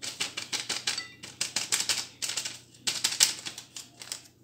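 Paper sachets of baking powder and vanilla crinkling and being tapped as the powder is shaken out over a bowl, a quick run of sharp clicks in several short bursts with brief pauses between.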